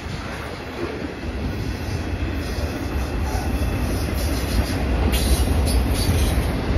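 Freight cars rolling past at track side, a lumber-loaded centerbeam flatcar and then autorack cars: a steady low rumble of steel wheels on the rails. The sound grows louder and brighter about five seconds in.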